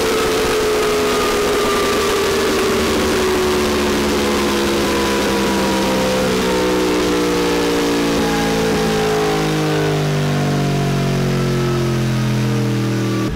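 Yamaha R1M's crossplane inline-four on a chassis dyno, its revs falling slowly and steadily from high rpm as engine and roller run down after a full-throttle power run.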